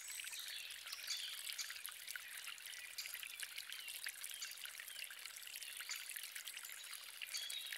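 Faint trickling water with small drips and splashes.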